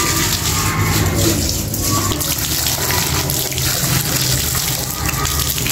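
Water running from wall taps and splashing off hands and a tiled floor.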